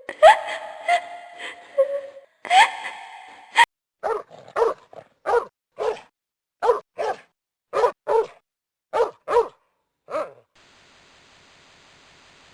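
Dog-like yelping and barking. A couple of rising yelps come first, then a run of about a dozen short yaps, many in quick pairs, which stops about ten seconds in, leaving a faint hiss.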